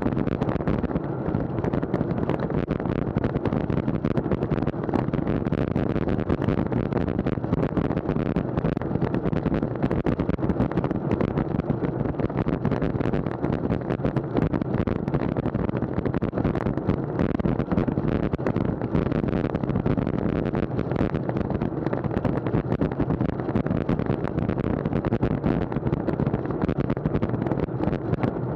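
Wind buffeting an action camera's microphone on a road bike ridden at speed: a steady, loud, low rush with constant rapid flutter.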